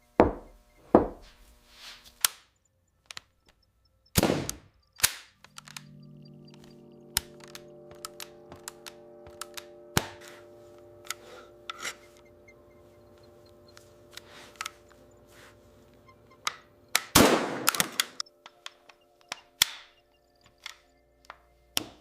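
Metal parts being handled: sharp clicks, knocks and clangs at irregular intervals, loudest about four seconds in and again near seventeen seconds. A steady hum with several held tones sets in about five seconds in.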